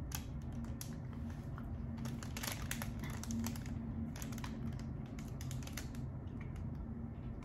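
Plastic candy wrappers crinkling and clicking as they are handled and turned over, in irregular spells that thin out near the end, over a steady low hum.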